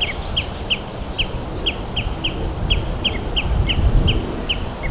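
Common redshank chick giving its begging call for food: a steady series of short, high, slightly falling notes, about three a second, over a low background rumble.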